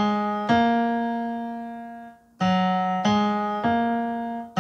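Electronic keyboard with a piano voice playing the first three notes of the F-sharp major scale (F♯, G♯, A♯) slowly on the black keys. One run ends on a held A♯, then after a short pause the three notes rise again, about one every 0.6 s.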